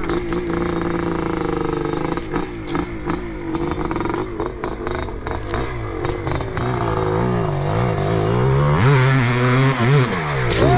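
Two-stroke Yamaha motocross bike running: a steady engine note at first, then revving up and down repeatedly from about halfway, getting louder and closest near the end as it climbs toward the track jump.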